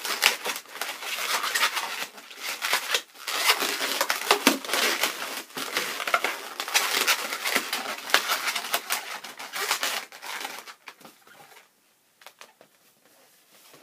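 Inflated latex balloons rubbing against each other as they are twisted together by hand, a dense crackling that dies away about ten seconds in.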